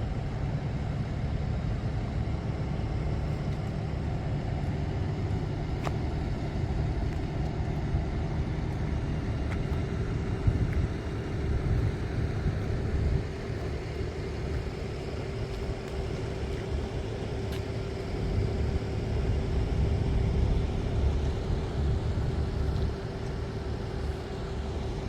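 Rice combine harvester running steadily, a low mechanical rumble with a constant hum held over it.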